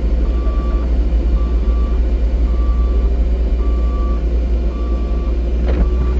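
Excavator engine running with a steady low rumble while its travel alarm beeps about once a second. A short sound sweeps downward in pitch near the end.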